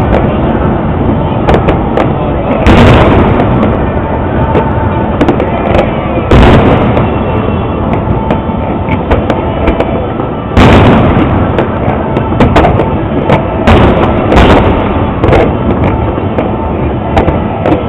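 Aerial fireworks display: shell bursts booming again and again over a constant din of smaller bangs and rumble. The biggest bangs come about 3, 6 and 10 seconds in, with a quicker run of them near the end.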